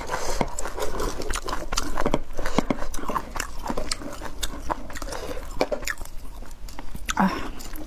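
Clear plastic food container crinkling and clicking as saucy cowhide strips and vegetable roots are shaken and pulled out of it with wooden chopsticks, with close chewing mixed in.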